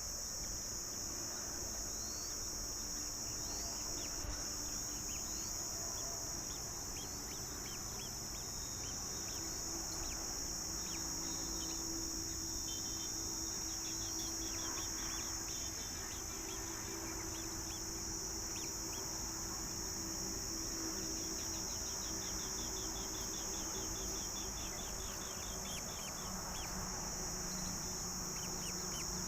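Steady high-pitched insect chorus, with short high bird chirps scattered over it and two quick runs of repeated chirps, one about halfway through and one later on.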